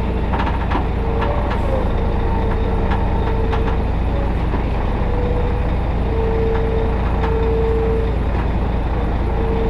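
Log truck's diesel engine running steadily as the truck drives over a gravel track, with short squeals coming and going throughout and a few knocks and rattles in the first couple of seconds.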